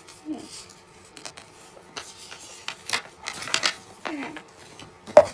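Small objects being handled: scattered light clicks, taps and rustling, with one sharper, louder click near the end.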